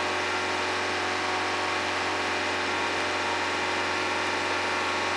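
Car engine idling steadily, heard up close at the exhaust tailpipe: a constant low hum with an even exhaust hiss.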